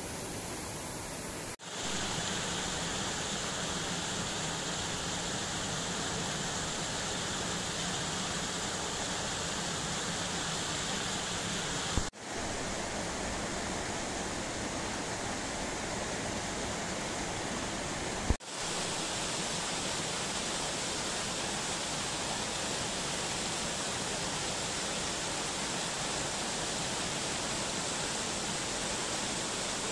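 Steady rush of a mountain stream cascading over rocks. It drops out for an instant three times, about 2, 12 and 18 seconds in, the last two with a sharp click.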